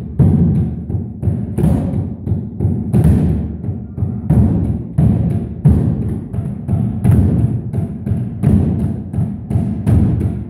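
Children and a teacher beating homemade drums built from stacked tyres with green tube beaters, batucada-style: a dense, uneven run of low, thudding strokes, several players at once.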